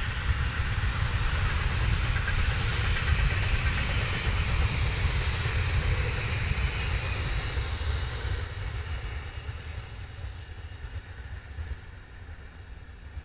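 Siemens Desiro electric multiple unit running along the rails and moving away, a steady rolling noise that fades gradually from about eight seconds in.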